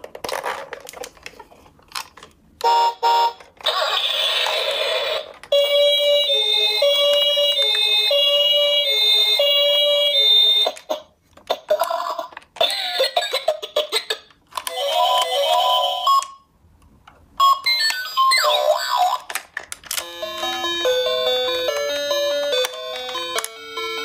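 Electronic sound effects and jingles from a battery-powered plastic toy ambulance: short clips of bright electronic tones and an alternating two-note siren-like pattern, then a stepped tune near the end, broken by short gaps and clicks of the plastic toy being handled.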